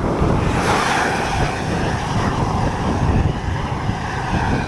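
Wind rushing and buffeting over the microphone of a camera on a moving bicycle, a steady loud rush with a low, uneven rumble.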